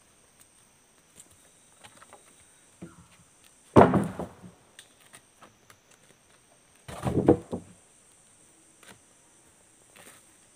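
Heavy freshly sawn mapala timber planks knocking against each other as one is lifted and dropped onto a stack: one loud knock about four seconds in, then a second, longer run of knocks about seven seconds in.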